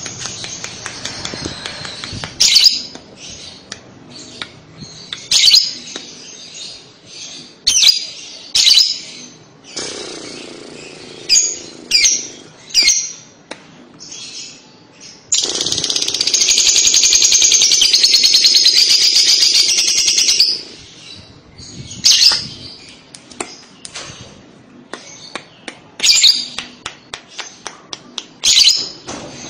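Lovebird calling in short, sharp, high chirps, with one long, rapid chattering trill (the 'ngekek' song) lasting about five seconds around the middle, then more scattered chirps.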